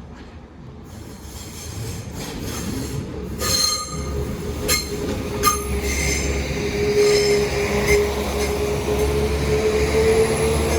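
Train running through a level crossing, growing louder, its wheels squealing with a steady high tone that strengthens midway, with a few sharp clicks around the middle.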